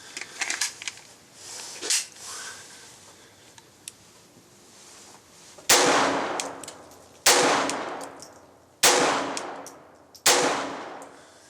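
Small metallic handling clicks, then four gunshots about a second and a half apart, each followed by a long ringing echo.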